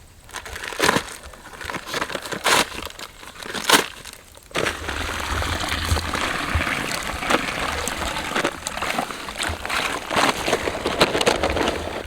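Gritty crunching and scraping of a mix being stirred by hand. There are a few sharp knocks in the first four seconds, then steady scraping from about four and a half seconds in.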